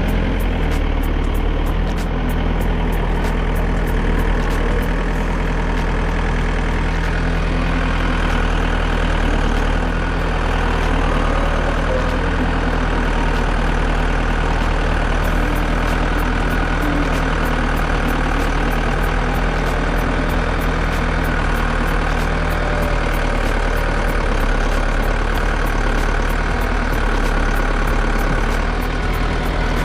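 Tractor engine idling steadily, with no revving.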